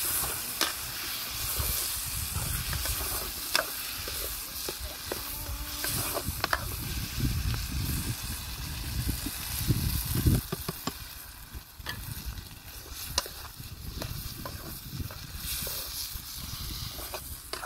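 Food frying in oil in a metal pan over a wood fire, a steady sizzle, with a metal spoon stirring and scraping the pan and now and then tapping its rim with a sharp click.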